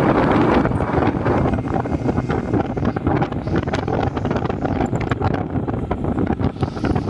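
Heavy wind buffeting on the microphone of a motorcycle rider moving at road speed, with the motorcycle running underneath.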